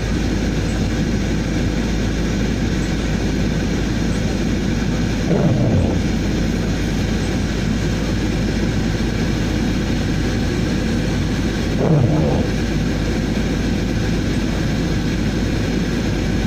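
Steady engine and road noise heard inside a car driving on a snow-covered road. There are two brief sounds falling in pitch, about five and a half and twelve seconds in.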